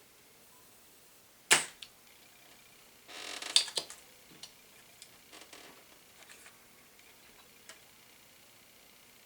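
Spring-loaded solder sucker (desoldering pump) firing with a sharp snap about a second and a half in, then a longer rasping scrape with clicks a couple of seconds later, and a few light ticks after.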